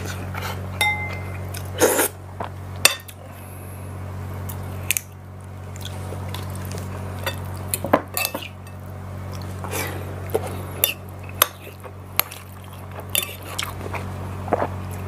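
Metal spoon and fork clinking and scraping on a ceramic plate in scattered, irregular clicks, over a steady low hum.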